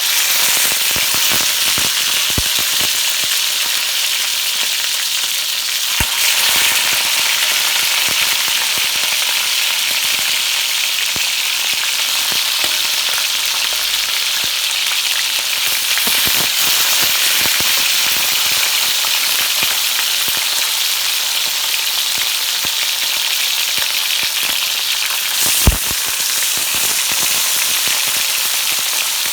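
Marinated chicken pieces sizzling steadily as they brown in hot oil in a pot, with small crackles and spatters throughout. There is one sharper knock a little before the end.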